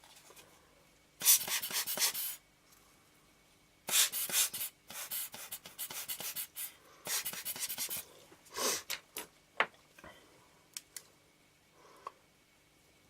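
Short bursts of rubbing and hissing from cleaning a camera lens element, about five in the first nine seconds. A few light clicks follow near the end.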